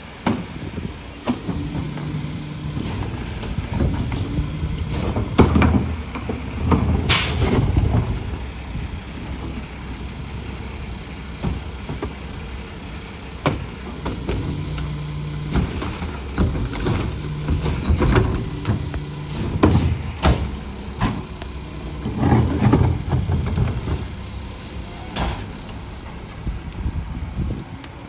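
McNeilus rear-loader garbage truck's diesel engine idling and speeding up several times as the hydraulic cart tipper and packer run, with sharp bangs as trash carts are dumped and knocked against the hopper, the loudest about seven seconds in.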